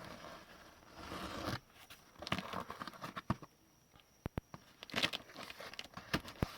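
A shipping package being torn open and its packaging handled: tearing and crinkling, with several sharp clicks between about three and six and a half seconds in.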